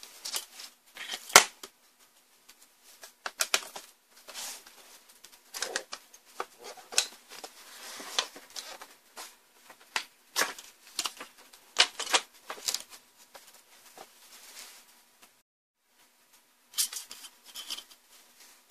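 Irregular clicks, taps and light rattles of monitor backlight parts being handled: the panel's plastic sheets and the metal CCFL lamp rails knocking against the frame as they are lifted out. One sharp knock about a second and a half in is the loudest.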